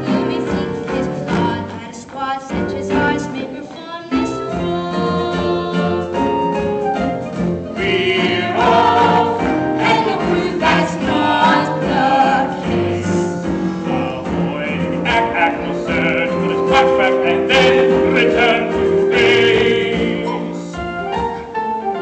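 Musical theatre cast singing a song together over instrumental accompaniment.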